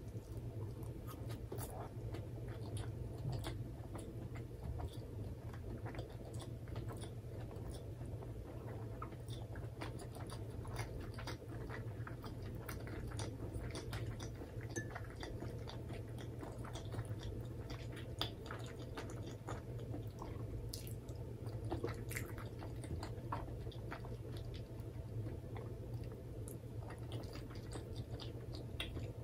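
Close-miked chewing of a mentaiko rice ball wrapped in nori: steady mouth-closed chewing with many small, crisp clicks and wet mouth sounds.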